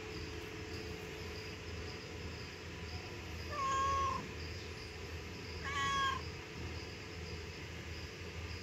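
Tabby cat meowing twice, a couple of seconds apart, over faint steady chirping of insects.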